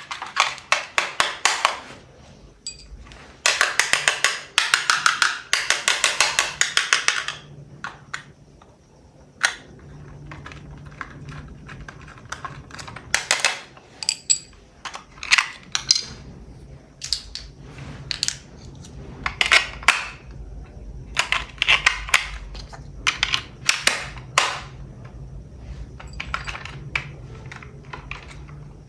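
Small hard objects being handled: two stretches of rapid, even ticking at the start and again from about four to seven seconds in, then scattered single clicks and knocks.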